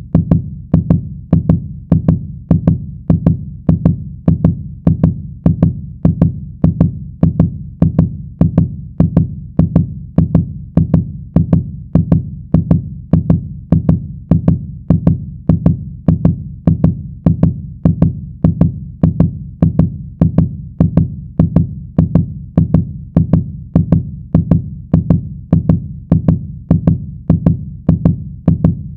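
Heartbeat sound effect, loud: a fast, steady run of lub-dub double thumps, about two a second.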